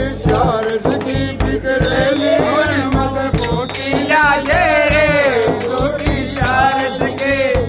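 Group of men singing a Holi dhamal folk song, with long wavering held notes in the middle, over a steady beat on a large chang frame drum and the ringing of small metal hand cymbals (manjira).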